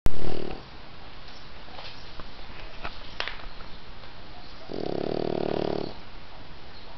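A sleeping pet snoring: a short snore at the very start under a loud bump, then one long drawn-out snore a little under five seconds in, lasting just over a second. A few faint clicks come in between.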